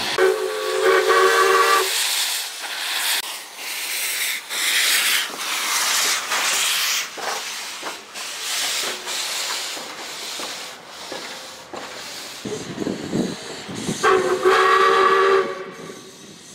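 Steam locomotive whistle blowing one blast of nearly two seconds, then hissing steam and the chuffs of the exhaust as the locomotive pulls away past, steam blowing from its cylinder cocks. A second whistle blast of about a second and a half sounds near the end.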